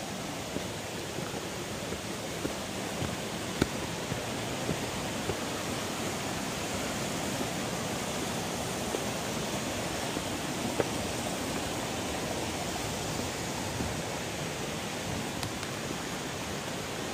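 Steady rushing of water from a nearby river and waterfall, with a few light footfalls on a dirt trail.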